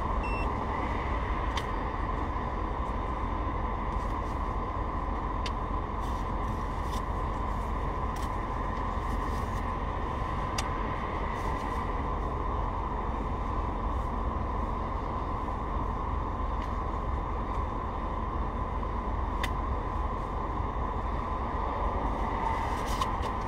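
Steady hum and rumble of a stopped car idling with the driver's window open, with a few faint clicks.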